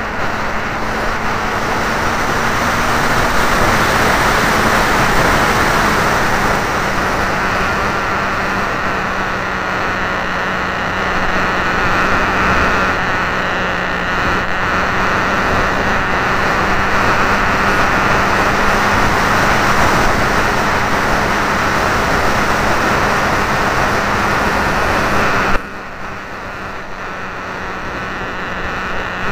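RC model airplane's motor and propeller heard through the camera mounted on the plane: a steady drone with a low hum under rushing air noise. A few seconds before the end the sound suddenly drops, becoming quieter and duller.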